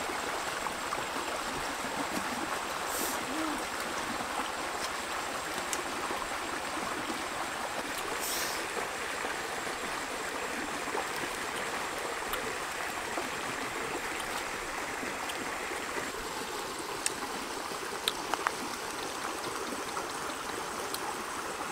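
Shallow rocky stream running over stones: a steady, even rush of water. A few short, sharp ticks about three-quarters of the way through.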